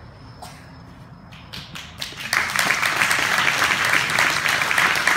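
Audience applause: a few scattered claps, then steady clapping that breaks out about two seconds in.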